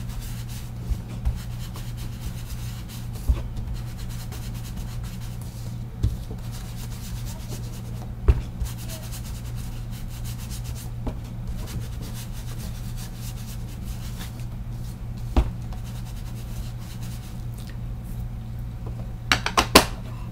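Ink sponge rubbed and dabbed over a paper shipping tag, sponging on distress ink: a soft, scratchy rubbing broken by a few light taps, with a quick cluster of sharper clicks near the end.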